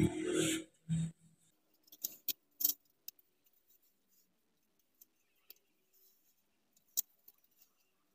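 Sparse light clicks and clinks of a spoon and small steel mugs being handled, after a short rustling clatter and a thump in the first second.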